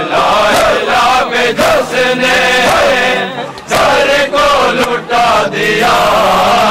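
Men's voices chanting together, loud and continuous, with sharp beats cutting in between the lines.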